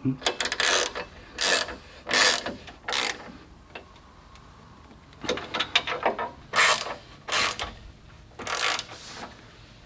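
Socket ratchet wrench clicking in short runs of strokes as it tightens the mounting bolt of an aluminium winch hawse fairlead on the bumper: about four runs in the first three seconds, a pause of about two seconds, then several more runs.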